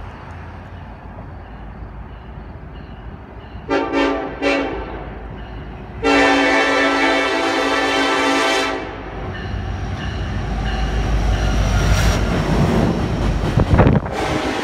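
Norfolk Southern diesel freight locomotive sounding its horn: two short blasts about four seconds in, then one long blast of about three seconds. The locomotives' engines then grow louder as they pass right below, loudest near the end, followed by the rumble of freight cars rolling by.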